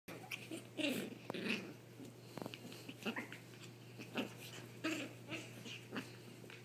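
Two small white dogs play-fighting: short, irregular play growls and breaths, with scuffling on a padded mat.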